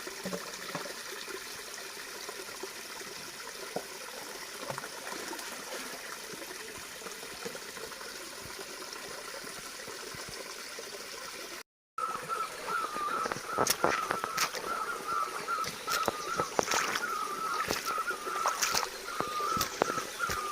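Water of a forest stream or spring trickling and splashing steadily. After a break about twelve seconds in, sharper splashes and a steady, wavering high tone join the flow.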